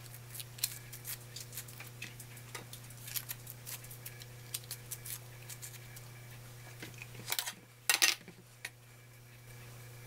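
Mandarin peel being torn off by hand: a run of faint small crackles and snaps, with a louder pair of handling sounds about seven and eight seconds in, over a low steady hum.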